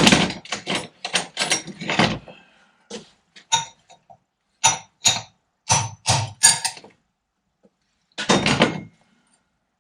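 Hammer knocks on steel: a quick cluster of blows, then single taps about every half second, then a short final flurry. They are driving a red-hot interference-fit bushing down onto the Fordson Major's bull pinion, and it is sticking rather than sliding home.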